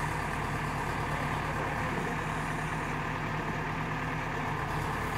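JCB 3DX backhoe loader's diesel engine running steadily while the backhoe arm and bucket dig and move earth.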